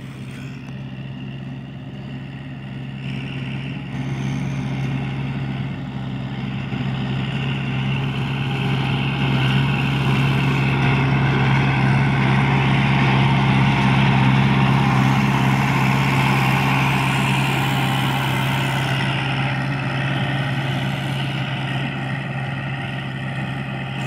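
Kubota L5018SP tractor's diesel engine running steadily under load while it drives a rear rotary tiller through heavy grass in first gear. The sound grows louder as the tractor comes close, peaking about halfway through, then eases off a little as it turns away.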